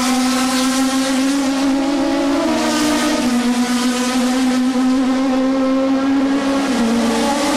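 Indy race car engines running at racing speed around the circuit: a loud, steady high engine drone whose pitch steps up and down a few times.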